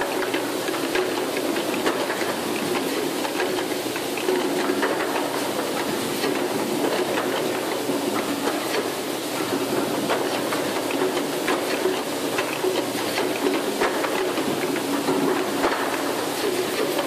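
Bottle unscrambler line running, its conveyor and feed screw moving plastic bottles along: a steady machine hum with constant light clattering and ticking of the plastic bottles.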